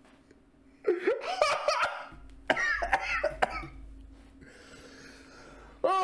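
A man laughing hard, in two fits: one starting about a second in and a second one shortly after, fading off toward the end.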